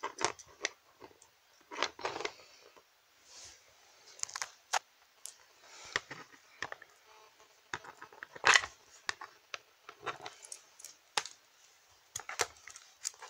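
Handling noise of toys being moved about a plastic toy castle playset: irregular rustles of fabric and light plastic clicks and taps, with a sharper knock about eight and a half seconds in.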